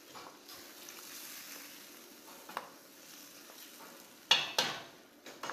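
A spatula stirring cuttlefish and tomato sauce in a stainless steel pan over a faint sizzle, then two sharp knocks with a short ring against the pan near the end.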